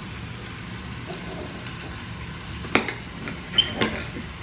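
Food sizzling steadily in a frying pan on the stove, with three short clinks, like a utensil against the pan, a little under three seconds in and again near the end.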